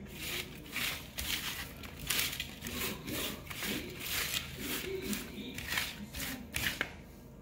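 A hand pushing and turning broccoli florets around a metal sheet pan: an irregular run of short scrapes and rustles as the florets slide over the pan.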